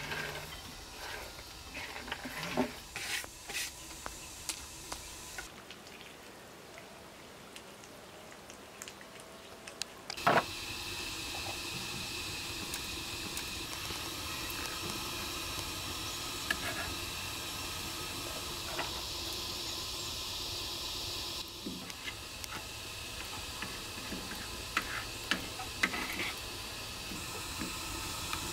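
Chopped walnuts scraped off a wooden cutting board into a bowl, with small clicks and taps. After a sharp knock about ten seconds in, butter sizzles steadily as it melts in a hot frying pan, and a metal spoon clicks against the pan a few times near the end.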